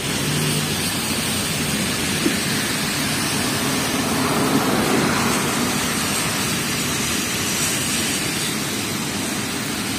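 Steady traffic noise on a slushy street: tyres hissing on wet snow with engines running. A police Audi A6 passes close about four to five seconds in, running with lights only and no siren.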